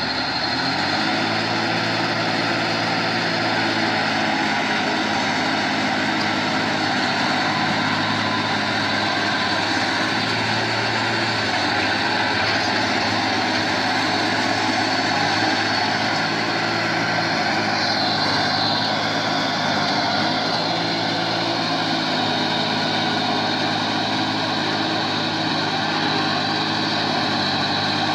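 Vehicle engine running steadily at a constant pitch.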